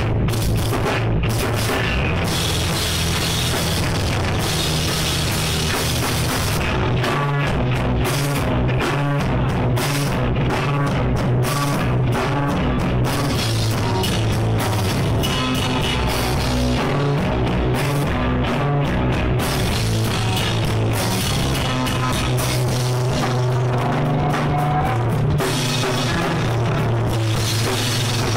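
A live rock band playing loud, with drum kit and guitar.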